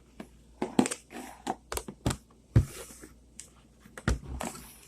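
Close handling noise: a scattered series of clicks, taps and knocks with a few short rustles, as slime and its plastic containers are handled.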